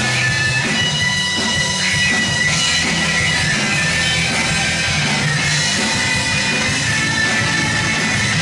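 Indie rock band playing live: electric guitars over bass and a drum kit, with a sustained high guitar line.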